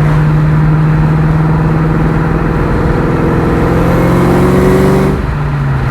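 Terminator Mustang Cobra's engine, heard from inside the car, running steadily and then accelerating with a rising note, before the revs drop suddenly about five seconds in as the driver shifts or lifts off.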